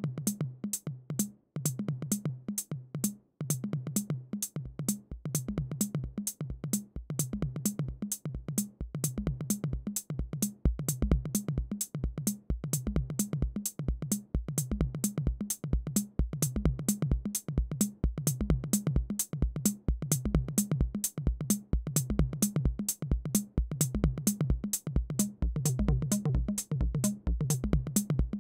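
Roland TR-06 Drumatix drum machine playing a fast, steady pattern: rapid hi-hat ticks over pitched low drum hits, with a deep kick drum coming in about four seconds in.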